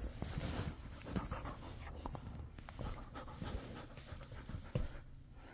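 A cat-toy ball's electronic mouse squeaker giving short trains of high, rapidly warbling chirps during the first two seconds or so. After that come soft rustling and a puppy's panting as he rubs against the toy.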